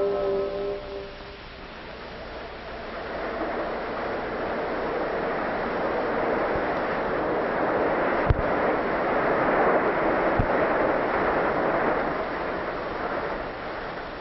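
A bell-like ringing chord fades within the first second. Then the rushing noise of a Third Avenue elevated train passing swells, is loudest about two-thirds of the way through, with two low thuds a couple of seconds apart, and eases off.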